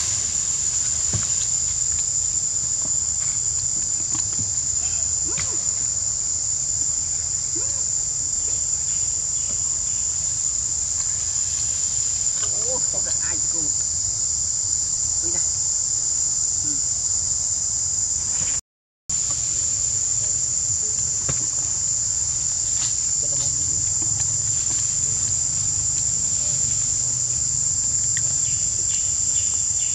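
Insects singing in a continuous, steady, high-pitched chorus, which cuts out completely for a moment a little past halfway.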